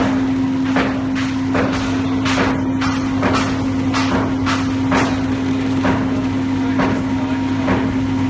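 Pillow fiber-filling machine running with a steady motor and blower hum while fiber is blown through the nozzle into a pillow case. About a dozen short, irregular swishes and knocks sound over the hum as the pillow fills.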